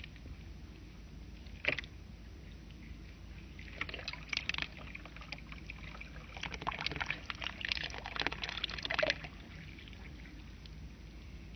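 Water poured from a clear plastic cup onto seeded soil in a tray, trickling in two spells: one around four seconds in, and a longer one from about six and a half to nine seconds. A single sharp click comes a little under two seconds in.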